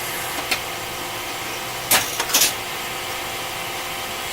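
Twin-turret automatic lathe running with a steady machine hum as it cycles on hex stock, with a light click about half a second in and two sharp knocks close together about two seconds in.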